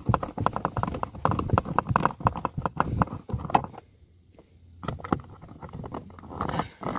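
Quick, irregular clicks and taps from a Phillips screwdriver working a screw out of the plastic door-handle trim, with a pause of about a second near the middle.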